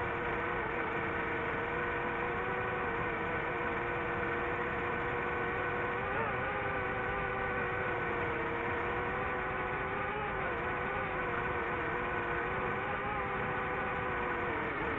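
DJI FPV drone's motors and propellers whining steadily, the pitch wavering slightly up and down as the throttle changes.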